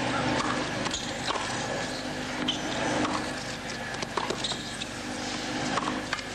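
Tennis ball struck back and forth by rackets in a baseline rally, beginning with a serve: sharp hits every second or so over a steady background murmur of court ambience.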